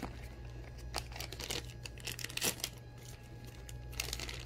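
Clear plastic bag of insulin syringes crinkling as it is handled and pulled out of its cardboard box, scattered crackles with a couple of sharper ones about one and two and a half seconds in.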